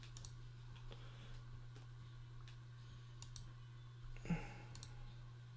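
Faint scattered computer clicks, spaced about a second apart, over a low steady electrical hum, with one slightly louder short bump about four seconds in.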